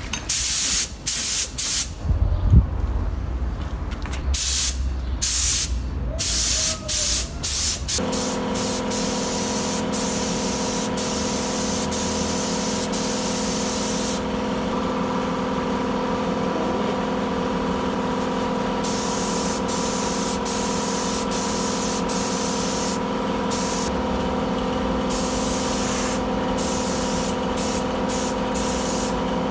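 Air spray gun hissing as primer is sprayed, in short trigger bursts at first and then in longer passes. About eight seconds in, a machine with a steady hum, most likely the air compressor, starts and runs beneath the hiss.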